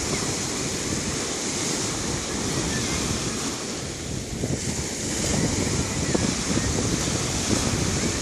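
Sea waves washing onto the shore in a continuous rush, with wind noise on the microphone. The surf swells louder about five seconds in.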